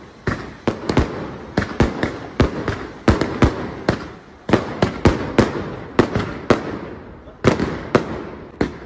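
A rapid, irregular string of loud, sharp bangs, about three a second, each trailing off in a short echo. The bangs pause briefly about four seconds in and again about seven seconds in.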